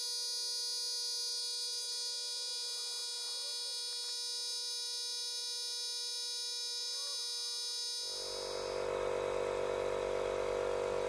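Makita DMP180 18 V cordless compressor running continuously, heard in a 10x time-lapse as a steady, high-pitched electric buzz. About eight seconds in the sound turns fuller and lower.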